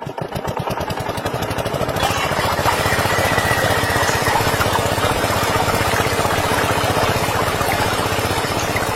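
Small engine starting up: its firing pulses quicken over the first two seconds, then it runs steadily at a higher, louder speed.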